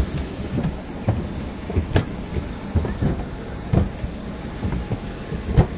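Steady high-pitched whine and low rumble of aircraft noise at a jet airliner on the apron. Dull thuds about once a second from footsteps on the metal boarding stairs.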